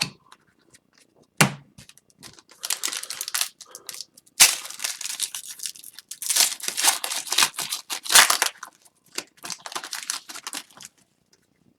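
Crinkling and rustling of wrappers or sleeves as trading cards are handled, in irregular bursts, with a sharp click about a second and a half in.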